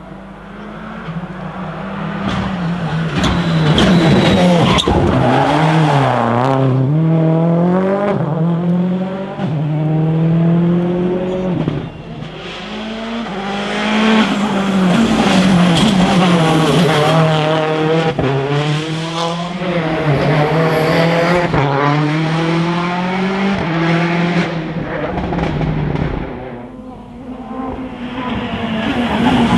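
Rally cars at full attack on a stage, engines revving high and dropping back over and over through gear changes and braking, with some tyre squeal. The sound falls away twice, about twelve seconds in and a few seconds before the end, then builds again.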